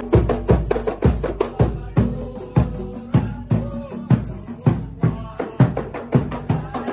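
Music with a steady drum beat, about two strikes a second, over a melody.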